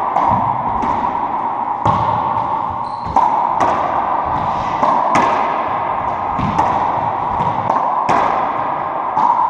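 Racquetball being played in an enclosed court: sharp smacks of the ball off racquets, walls and floor, roughly one every second, each with a ringing echo, over a steady hum.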